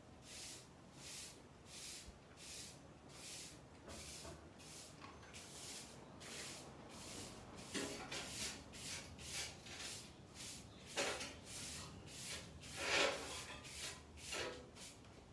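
Long-handled bristle broom sweeping a tiled floor in steady brushing strokes, about one and a half a second, with a few louder strokes in the second half.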